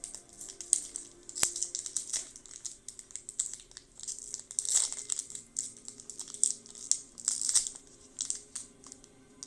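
A foil booster-pack wrapper crinkling and tearing as it is opened, in irregular crackles with a sharp click about one and a half seconds in.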